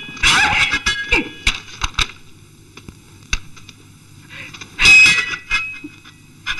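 Sword blades clashing: a quick flurry of ringing metal clangs and clicks in the first two seconds, then one loud clash about five seconds in that rings on briefly.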